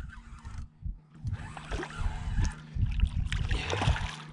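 Hooked channel catfish thrashing and splashing at the water's surface beside the boat as it is reeled in. The splashing starts about a second in and goes on unevenly over low thumps.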